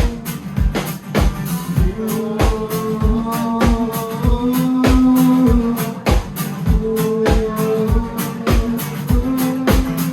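Live rock band playing an instrumental passage between verses: drum kit keeping a steady beat under held guitar notes.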